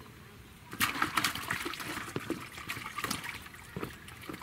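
A fish splashing and thrashing in shallow water at the bank as it goes into the water. The splashing starts about a second in and lasts a couple of seconds.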